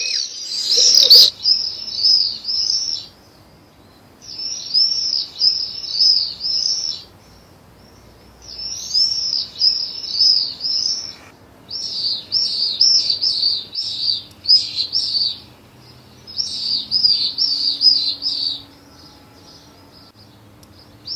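Swifts screaming in flight: about five bursts of shrill, high calls, each lasting two to three seconds, with short pauses between them.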